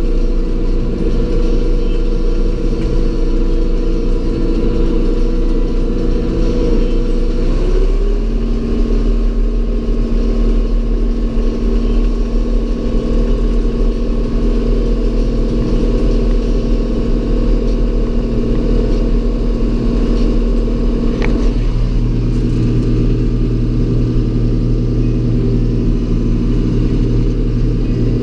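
Tractor engine running steadily while driving a PTO snowblower, its engine note shifting about a quarter of the way in and again past two-thirds.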